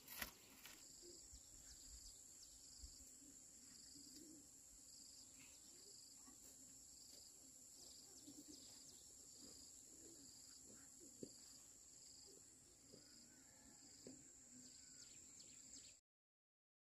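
Faint outdoor insect chorus: a steady high-pitched drone with a short chirp repeating about twice a second. A sharp click at the very start, and the sound cuts off abruptly about a second before the end.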